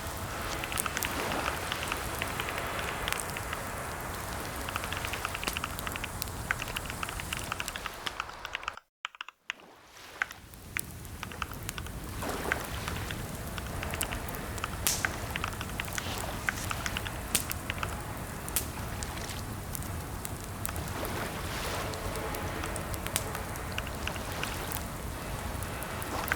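Typing on a computer keyboard: irregular keystroke clicks over a steady hiss. The sound cuts out briefly about nine seconds in, then the typing resumes.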